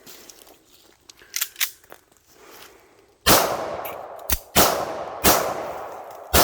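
Pistol fired four times from about three seconds in, each shot cracking loudly and trailing off in a long echo. A few faint clicks come before the first shot.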